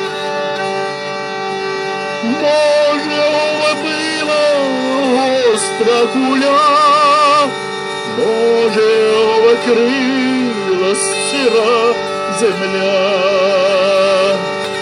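Hurdy-gurdy sounding a steady drone while a man sings a Ukrainian folk song over it with vibrato, the singing starting about two seconds in and pausing briefly near the middle.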